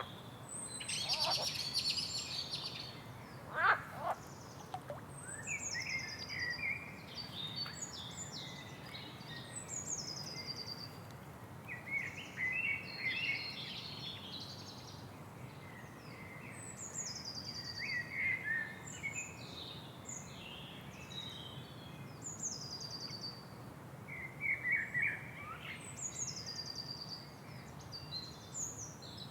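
Several birds singing in a continuous chorus of chirps and trills, one repeating a quick descending phrase every few seconds, over a steady low background noise.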